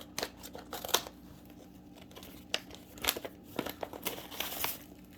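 Packaging being handled and unwrapped, with scattered crinkling and crackling that bunches up about halfway through.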